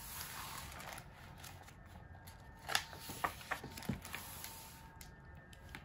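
Paper rustling as the page of a hardcover picture book is turned and smoothed down, with a few sharp taps and clicks of paper and hands about halfway through.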